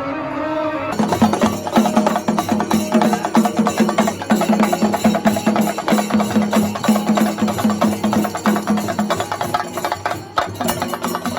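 Procession drumming: a group of drums beaten in a fast, steady rhythm of rapid strikes. It starts about a second in, when a held melodic tone stops, and briefly breaks off near the end.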